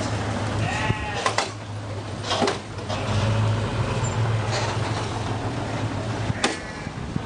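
Truck engine idling with a steady low hum. A few short high calls sound over it, about a second in and again near the end, with a couple of knocks in between.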